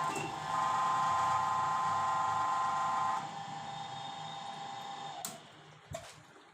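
Hose crimping machine's motor running with a steady whine that drops in level about three seconds in, followed by two sharp clicks near the end.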